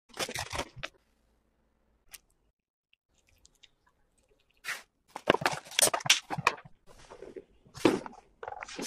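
Knife crunching through the crisp crust of a baked potato pizza bread, then the bread pulled and torn apart by hand in a run of crackling, tearing sounds. Near the end, flour is poured into a glass bowl.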